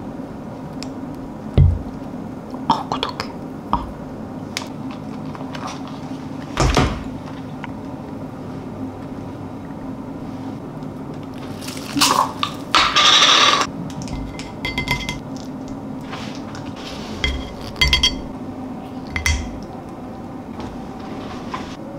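A metal spoon clinking and scraping against a ceramic plate while serving soft cream and fruit compote onto pancakes, in scattered short taps with one longer scrape about halfway through. A steady low hum sits underneath.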